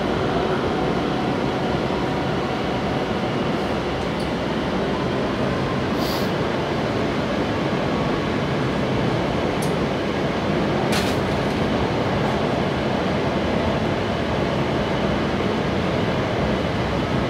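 Interior of a São Paulo Metro Line 5 Frota P subway car running at speed through a tunnel: a steady rumble of wheels on rail with running-gear hiss. Two brief sharp ticks come through, about six and eleven seconds in.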